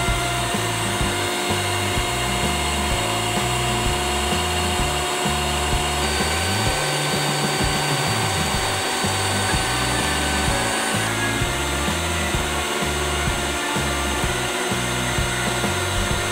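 Electric stand mixer running steadily at its highest speed, its twin beaters whipping eggs and sugar into a thick, pale foam, with background music alongside.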